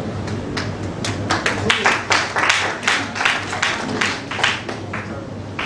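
Audience applauding in a hall, a scatter of claps swelling about a second in and dying away near the end.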